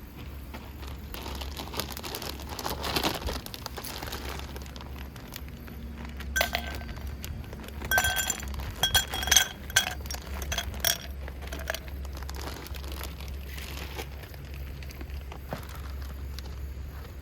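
Cooking gear clinking: a run of sharp, ringing clinks about six to eleven seconds in, with scattered lighter knocks around it. A steady low rumble runs underneath.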